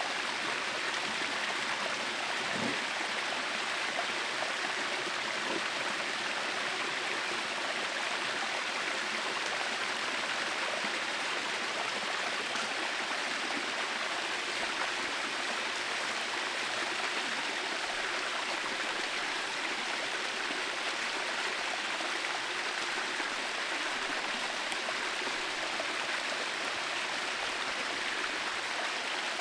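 Steady rush of running water, an even hiss without pauses or rhythm.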